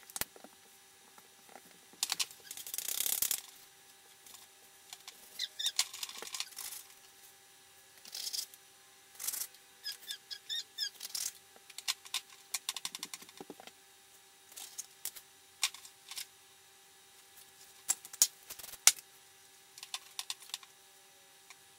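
Metal cookie cutters clinking and tapping on a countertop as cookie dough is rolled out and cut: a string of light clicks and knocks, with a longer scraping, rustling stretch a few seconds in. A faint steady hum runs underneath.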